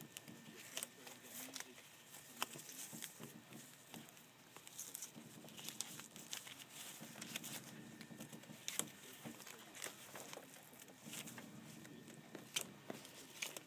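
Sheer fabric swatches and their paper backing cards being handled and turned in a sample book: faint rustling and crinkling with scattered small clicks and taps.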